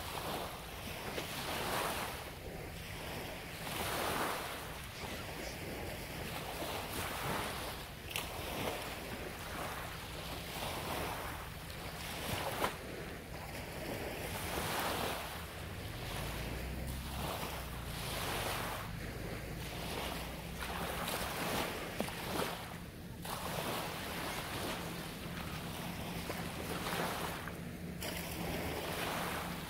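Small waves breaking and washing up on a beach, one swell of surf every couple of seconds.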